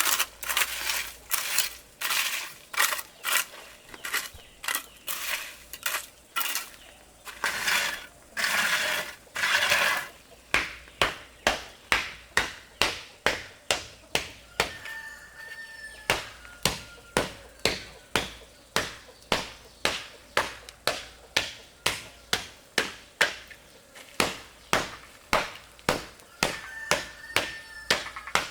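A steady run of sharp knocks, quick and uneven at first, then settling to about two evenly spaced strikes a second, with a few faint high peeping tones in the middle and near the end.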